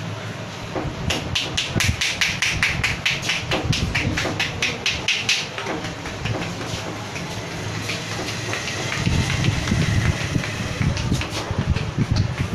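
A rapid, even run of crisp taps, about four or five a second, lasting about four seconds, with a few more near the end, as a barber works at a customer's head.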